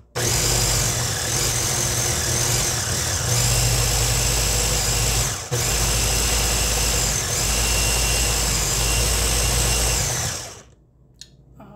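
Ninja press-top blender's motor running at full speed, blending a thick oat and banana batter. It cuts out briefly about halfway through as the motor head is let up, then runs again until it stops near the end.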